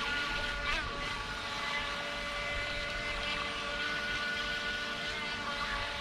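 Electric motor of a radio-controlled toy boat whining steadily, with a brief wobble in pitch just under a second in.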